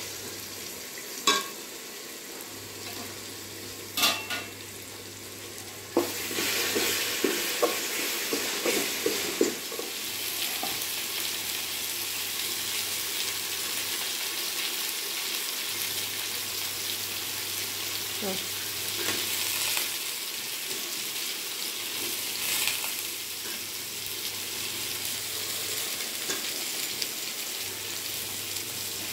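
Vegetables and herbs sizzling in a large metal pot on a gas stove while a slotted metal ladle stirs them, with sharp clinks of the ladle against the pot in the first few seconds. About six seconds in the sizzling gets louder, with some clatter of stirring, then runs on steadily.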